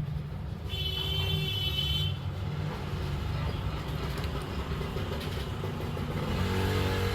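Steady low rumble, with a short high-pitched tone lasting about a second, starting just under a second in.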